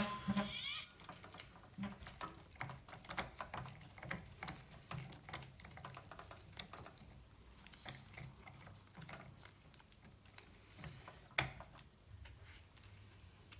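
Faint, scattered clicks and scrapes of small plastic parts being handled as a snapped servo saver is worked off an RC truck's steering servo, with one sharper click about eleven seconds in.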